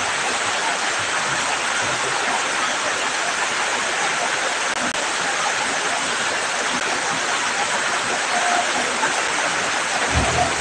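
Heavy rain falling steadily on grass and a flooded field, a dense, even hiss.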